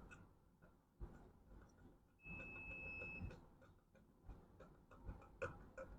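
Faint scattered clicks and small knocks of hands working wires and connectors into place. A brief, steady high-pitched tone sounds for about a second a little after two seconds in.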